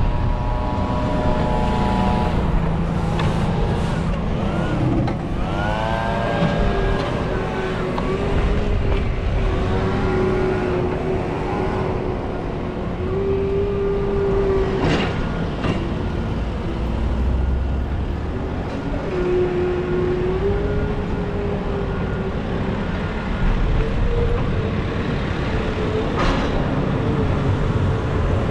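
Street traffic and motor vehicle engines passing, over a continuous low rumble. A pitched engine or machine tone rises and falls several times and holds steady for stretches.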